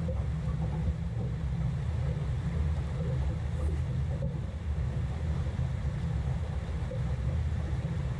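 Steady low rumble of wind buffeting the camera's microphone over the rush of river riffles around a small fishing boat.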